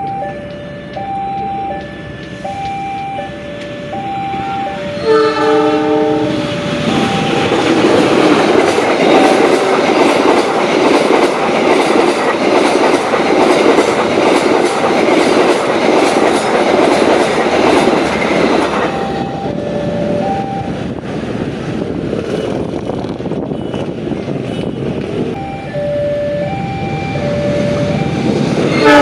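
Level-crossing warning signal sounding two notes that alternate high and low about once a second. About five seconds in, a train's horn sounds a short chord. The train then passes for about twelve seconds, its wheels clacking in a steady rhythm over the rail joints, after which the crossing signal is heard again and another horn blast begins at the very end.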